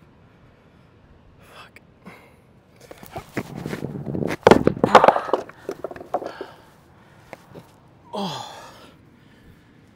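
Heavy round beach boulder knocking and grinding against the rounded stone beneath it as it is lowered onto a balanced rock stack, a cluster of sharp clicks and scrapes in the middle, with the lifter's hard breathing. Near the end, a short breath out that falls in pitch.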